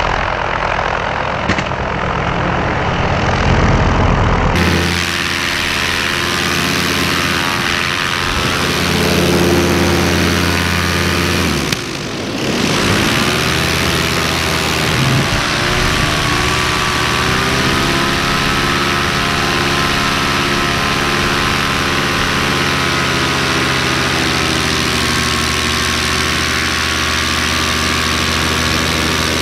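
Paramotor's two-stroke engine and propeller running steadily, with a brief drop about twelve seconds in after which the pitch bends up and down with throttle changes before settling.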